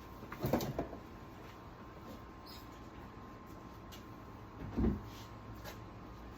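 Light handling noises: a short clatter of small knocks about half a second in, then a single dull low thump near five seconds in.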